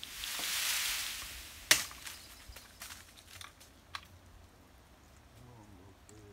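A brief rushing hiss, then one sharp click and a few lighter clicks and taps as a chainsaw's guide bar is pulled out and its chain fitted by hand.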